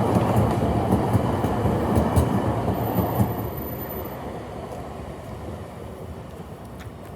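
Light rail train passing close by, its wheels rumbling with sharp clicks over the rails, then dropping away a little over three seconds in and fading as it moves off.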